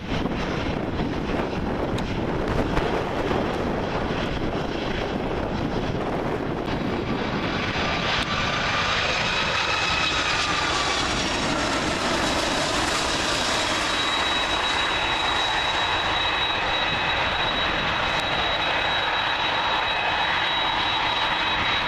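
Jet airliner engines, a Boeing 757 on final approach to land: a steady rush of engine noise. From about seven seconds in, whining tones slide in pitch and grow stronger, settling into a steady high whine through the later part as the aircraft comes over and touches down.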